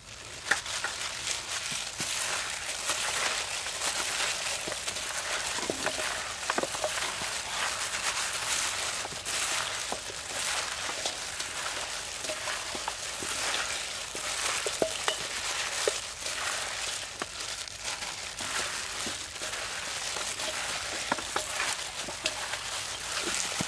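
Plastic-gloved hands mixing seasoned raw quail in a stainless steel bowl: the loose plastic gloves rustle and the wet meat squelches, with many small clicks as the birds knock against the bowl.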